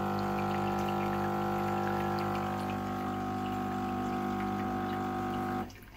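Philips Saeco Xsmall espresso machine's vibratory pump running with a steady hum as water is pushed through the brew path and runs from the coffee spout into a glass cup. It stops abruptly near the end. Water reaching the coffee outlet shows the newly replaced steam/hot-water valve is working.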